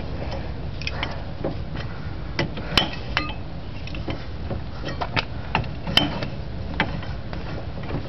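Irregular metal clicks and clinks of a hand wrench working the nuts on a bolt-on puller plate, tightening it in turn to press the hub off a Bobcat 463 skid steer axle. The two sharpest clinks come about three and six seconds in, over a steady low background hum.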